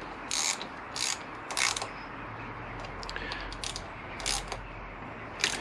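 Small hand ratchet clicking in several short runs as the screws of the brake master cylinder clamp are wound in on the motorcycle handlebar.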